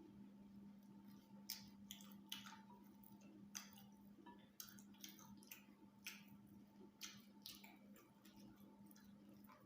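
Faint, wet chewing and lip smacks of someone eating white rice and stew, about ten short irregular smacks over a steady low electrical hum.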